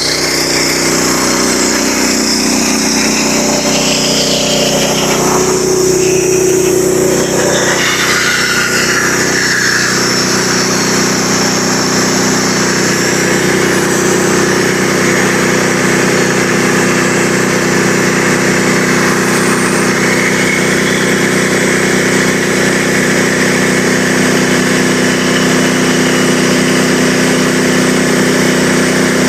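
Small engine of a Frontier OS27 portable sawmill running steadily at constant speed, with a slight shift in its tone about six seconds in.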